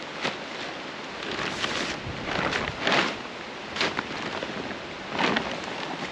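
Steady hiss of rain falling, with several irregular louder rustling swishes over it.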